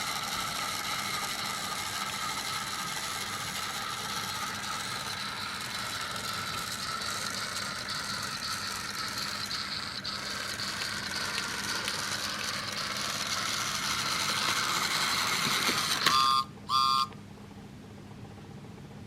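Battery-powered Tomy Talk 'n' Action James toy train's small motor and plastic gears whirring steadily as it runs, getting a little louder before stopping abruptly about sixteen seconds in. Two short high beeps follow. It runs a bit slow, but it is working again after restoration.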